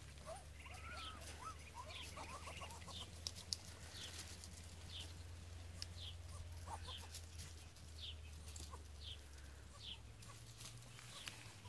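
Muscovy duck squeaking softly: a few wavering squeaky calls in the first couple of seconds, then short high peeps repeating about one to two times a second. A steady low hum runs underneath.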